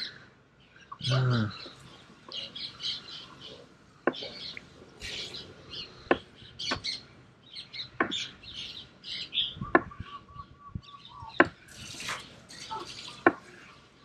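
Kitchen knife slicing through soft raw tuna testes, the blade tapping down on a plastic cutting board in about seven sharp clicks spaced one to two seconds apart. Small birds chirp throughout, and a short low voice sound comes about a second in.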